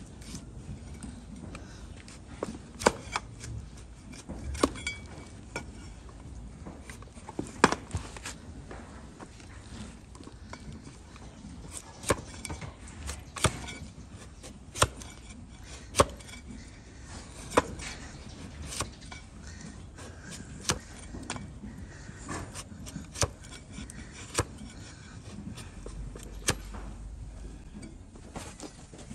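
Hoof trimming tools cutting through a donkey's thick, overgrown hoof horn: sharp cracks of the blade biting into the hoof, one every second or two.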